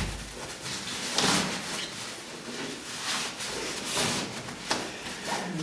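Clear plastic pram rain cover rustling and crinkling as it is pulled and stretched over a carrycot, with a few louder crackles along the way.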